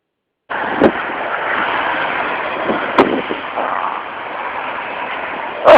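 Steady hiss with a sharp knock about a second in and another about three seconds in, then a loud short burst at the very end.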